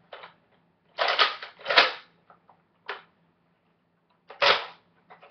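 Short bursts of hard plastic clacking and rattling from a clear-plastic Nerf Longstrike CS-6 blaster being handled, loudest with a sharp click about two seconds in, and another burst near the end.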